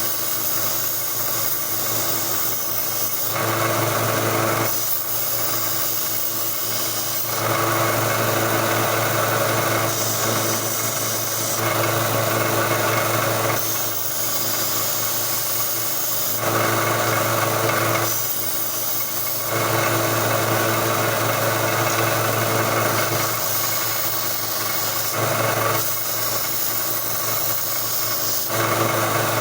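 1x30 belt sander running with a 120-grit belt, its motor humming steadily, while steel plier handles are pressed against the belt in repeated spells of a few seconds, each bringing a rasping grind.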